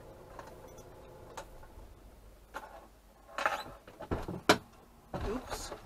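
Handling noises inside a stopped camping car's cab: several sharp clicks and knocks, and two short rustling bursts about three and five seconds in.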